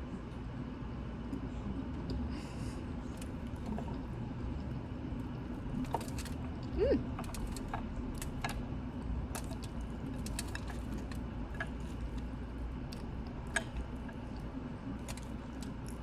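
Scattered light clicks and clinks of eating, a utensil tapping a dish and food being picked at and chewed, over a steady low hum.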